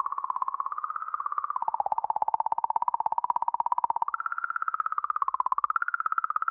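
Rosetta's plasma measurements around Comet 67P Churyumov-Gerasimenko turned into sound: a warbling tone pulsing rapidly many times a second, stepping down in pitch about a second and a half in and up again about four seconds in, then wavering.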